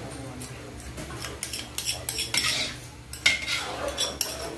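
Long metal spoon stirring a thick, sticky peanut sauce in a metal wok, scraping and clinking against the pan, with one sharp clink a little past three seconds in.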